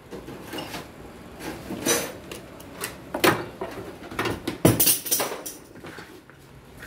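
Irregular metallic clinks and knocks of a socket wrench and long extension being fitted and worked on an engine mount bolt in a car's engine bay. The loudest knocks come about a third and two thirds of the way through.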